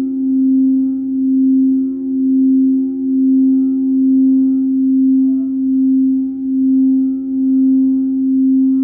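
Quartz crystal singing bowls sustaining two steady, pure notes held together, with a slow pulsing waver in loudness about once a second.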